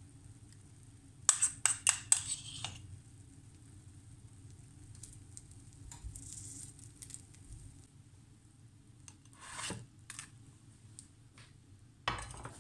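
A metal spoon clicking and scraping against a non-stick frying pan as dressing is spread over the cheese: a quick cluster of sharp clicks about a second in, and a few softer scrapes and ticks later. A faint steady low hum runs underneath.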